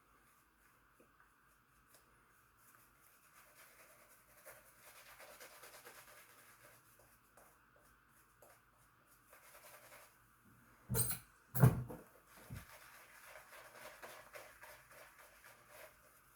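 Faint rasping of a single-edge safety razor scraping through several days' stubble, in short strokes. About two-thirds through, two loud sharp knocks and a smaller one cut in.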